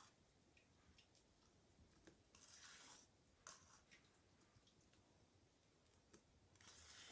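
Near silence: room tone with a few faint, brief soft hisses and tiny clicks.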